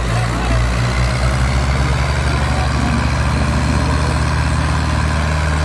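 Diesel engines of an HMT 5911 and a Swaraj 963 tractor running hard under load while they pull against each other in a tochan tug-of-war: a loud, steady, low engine drone with an even firing pulse.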